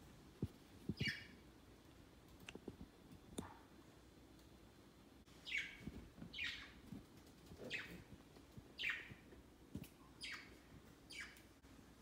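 Budgerigars giving short, falling chirps: one about a second in, then a run of six spaced about a second apart in the second half, with a few soft taps early on.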